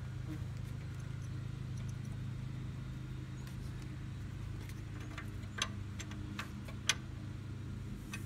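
A few light metallic clicks and taps as bolts are handled and fitted into a steel exhaust manifold clamp on the engine, scattered through the second half, over a steady low hum.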